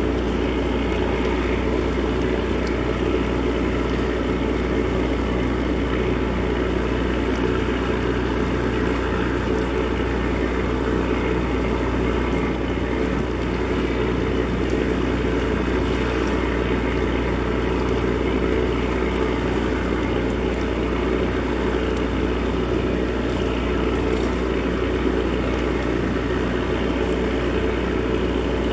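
Container ship's diesel engines running steadily: an even, low hum that holds at one level throughout.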